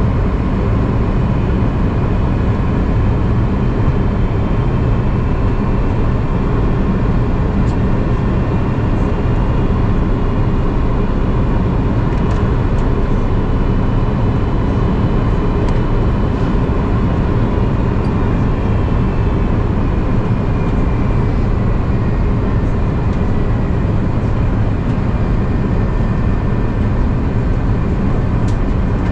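Steady cabin noise inside an Airbus A330-300 on descent: the engines drone and air rushes past the fuselage. Faint higher engine tones slowly shift in pitch.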